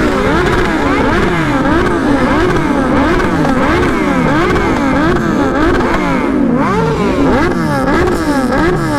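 Several superbike engines being revved over and over together, throttles blipped so the pitch climbs and drops again about once every three-quarters of a second, the revs of different bikes overlapping.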